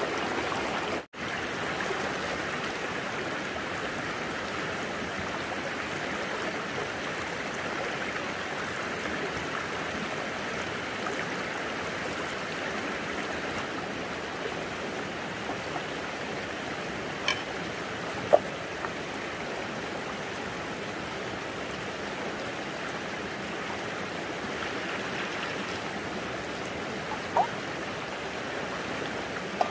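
Steady rush of running water, with a brief cut-out about a second in and a few faint clicks later on.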